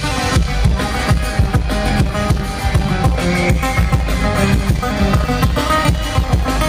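Live band music over a concert PA in an instrumental stretch: guitar playing over a drum kit with a dense, regular beat, and no singing.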